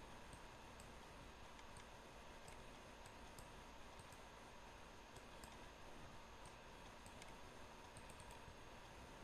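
Near silence: faint, scattered clicks of a computer mouse and keyboard over low hiss and a faint steady hum.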